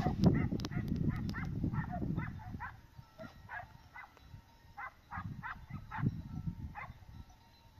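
Dog yelping repeatedly: a run of short, high calls, a few a second, with a brief pause midway, stopping about a second before the end.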